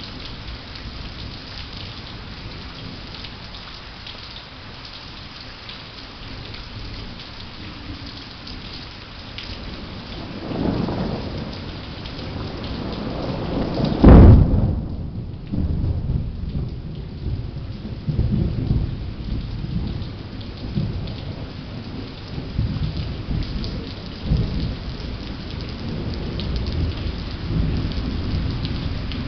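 Steady rain falling during a thunderstorm. There is a very loud, sharp thunderclap about halfway through, followed by rolling low rumbles of thunder.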